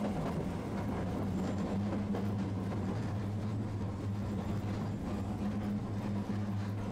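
Tosaden streetcar running along its tracks, heard from inside the car: a steady low hum over a continuous rumble.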